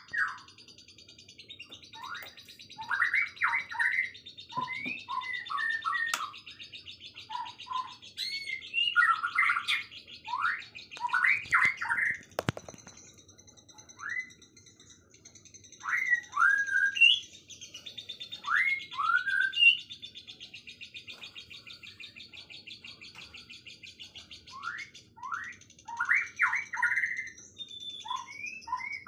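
Songbirds singing: loud, clear whistled phrases of quick sweeping notes come in bursts, over a continuous high, fast buzzing trill. A couple of sharp clicks are heard, one about midway.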